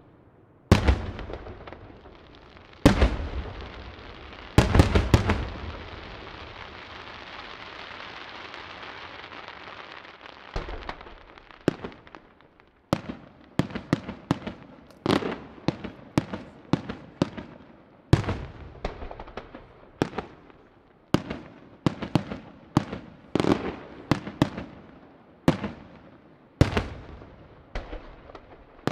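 Aerial firework shells bursting. Three loud booms come in the first five seconds, then a few seconds of steady hiss, then a quick run of sharp bangs, about one or two a second.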